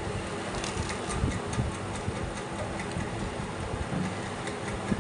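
A person biting and chewing a slice of bread with jam: soft low thumps and small ticks over a steady background hiss.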